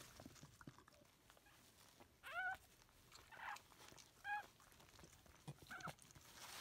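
Newborn Pembroke Welsh Corgi puppy giving four short, high-pitched squeaky cries, each rising then falling, spaced about a second apart. It cries while being rubbed to stimulate its breathing.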